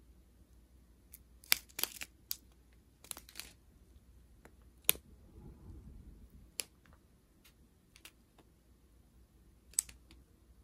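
Plastic zip bags of diamond-painting drills being handled and slid along: a scattering of short, sharp crinkles and clicks with faint rustling between them.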